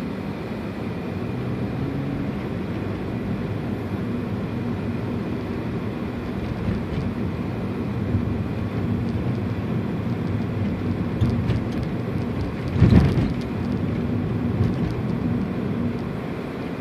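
A car's engine running with road noise, heard from inside the car, with one short thump about thirteen seconds in.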